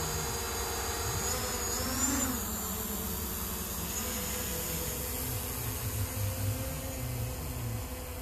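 Small quadcopter drone's propellers buzzing steadily, the pitch rising and falling briefly about two seconds in as the motors speed up during the climb.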